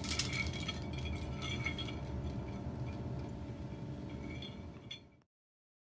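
Small glass clinks and tinkles as the broken floodlight bulb's base rocks and settles among shattered glass shards on a concrete floor, over a low steady hum. The sound cuts off suddenly about five seconds in.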